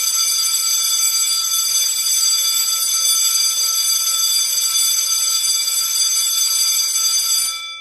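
An automatic school bell system playing a recorded ringing school bell through its speaker, in one continuous ring at a steady level. It stops shortly before the end, and its tones ring on and die away.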